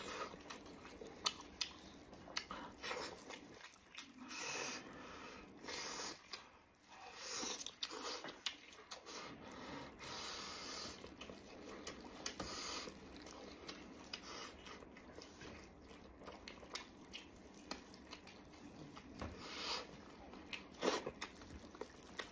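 Plastic-gloved hands pulling apart a braised pork knuckle in its sauce, wet squelching and tearing, mixed with close chewing and lip smacking. The sound comes as an irregular run of short clicks and squelches.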